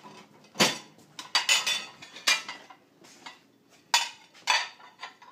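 Dishes clinking and clattering as plates and bowls are picked up and stacked by hand, in a string of sharp clatters.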